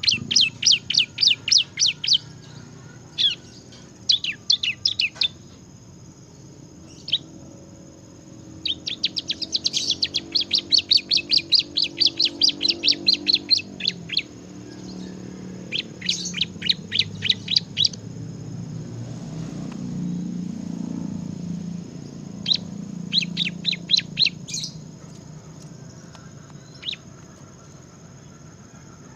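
Bar-winged prinia (ciblek) singing in rapid trains of sharp, high chirps, about eight a second, in bursts lasting one to five seconds, the longest a little before the middle. A low steady rumble runs underneath.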